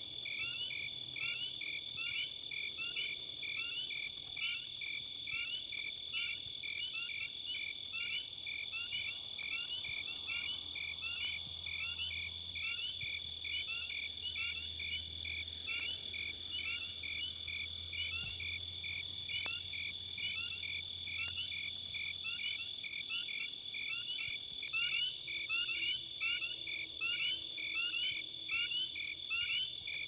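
Insects chirping in a steady, regular rhythm, about two and a half chirps a second, like a cricket, over a constant high-pitched whine.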